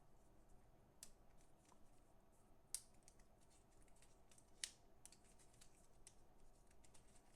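Faint handling of the cable's packaging: light ticks and rustles, with two sharper clicks about two seconds apart.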